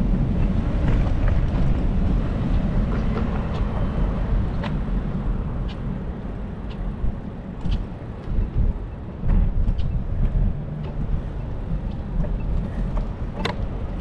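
Steady low rumble of wind on the microphone and rolling noise from a moving bicycle, with scattered sharp clicks and rattles; the loudest click comes near the end.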